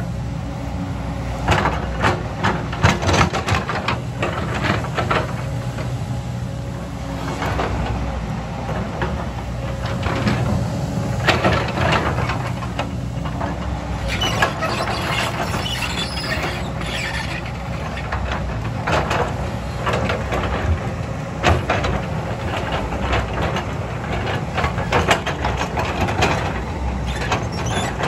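JCB 225 LC tracked excavator's diesel engine running steadily, with irregular knocks, clanks and scrapes as the bucket digs through rock and soil.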